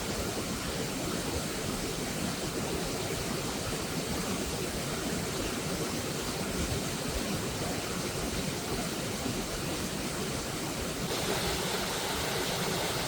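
Waterfall: a steady rush of falling water, turning slightly hissier about eleven seconds in.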